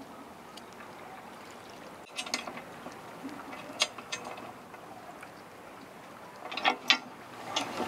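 Stainless steel chain link, shackle and chain being handled while the chain is fitted to a paravane fish, giving a few sharp metallic clicks and clinks about two, four and seven seconds in. The loudest clicks come near the end.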